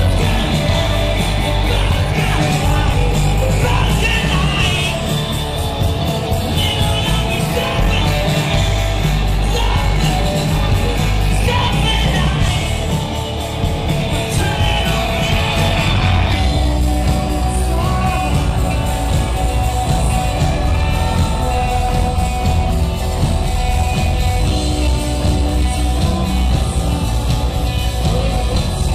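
Live rock band playing loudly, with electric guitar, electric bass, drums and singing, heard in a large hall. About halfway through the music settles into steadier held notes.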